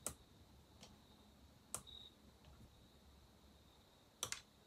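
A few sharp, short clicks of a small hand pick working at a chainsaw piston's pin circlip: one at the start, one about a second and a half later and a quick double near the end, over an otherwise near-silent background.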